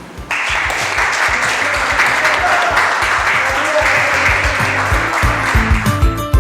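Applause breaks out suddenly right after a prize winner is announced, over background music with a steady beat. Near the end the clapping fades and guitar music comes to the fore.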